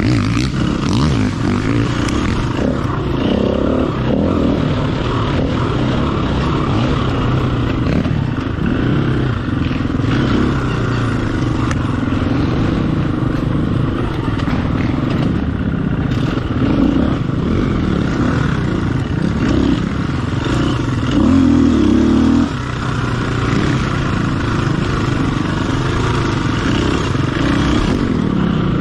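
Off-road racing dirt bike engine ridden hard, its revs rising and falling over and over, with a louder high-revving stretch about three-quarters of the way through.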